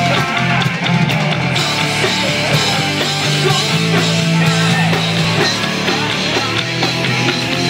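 Live rock band playing loudly during a sound check.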